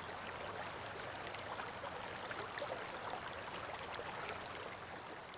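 Steady hiss full of fine crackles, like rain or running water, fading out near the end.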